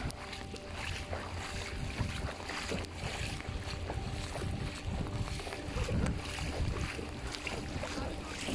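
Wind buffeting the microphone in a steady low rumble, with water sloshing and splashing as someone wades through shallow floodwater.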